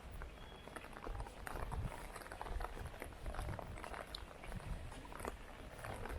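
Heavy rain, with many irregular drops and splashes close by, over a low rumble.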